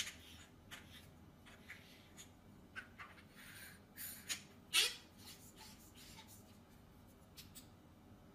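Odepro KL52 hunting flashlight being handled and screwed back together: a scatter of small clicks, taps and scrapes from its parts. The loudest click comes a little before five seconds in.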